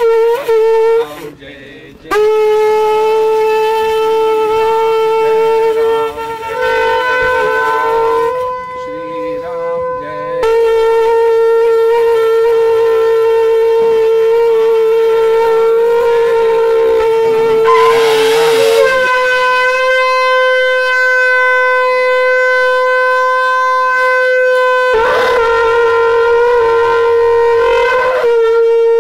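Conch shell (shankha) blown in long held notes with many overtones, broken by short pauses for breath; the pitch steps slightly higher about nineteen seconds in.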